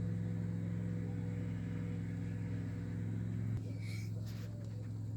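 Cat growling, a low steady rumble that breaks off briefly about three and a half seconds in, with a short higher-pitched cry just after.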